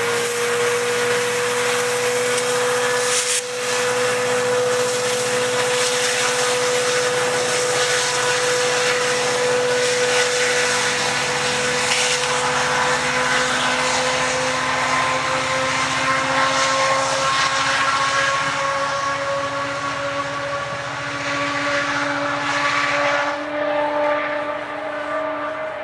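Diesel passenger locomotives running: a steady engine whine that slowly rises in pitch over heavy rumbling noise, briefly broken about three seconds in.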